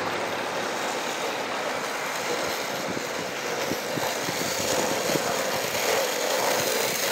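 Steady street traffic noise: vehicles running along a town road.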